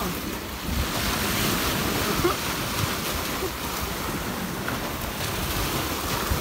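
Sea waves washing and breaking against a rocky shore, a steady rushing, with wind buffeting the microphone.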